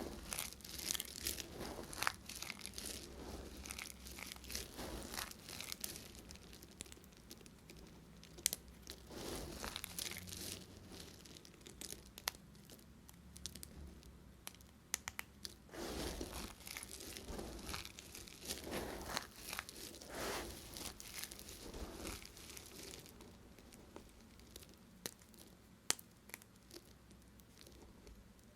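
Dry bar soap being cut with a knife: crisp crunching and scraping strokes mixed with many sharp little cracks as pieces break away.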